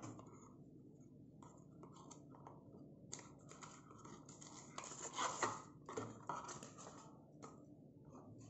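Faint rustling and scraping of a small cardboard smartwatch box and its paper manual being handled, in a few short bursts around the middle.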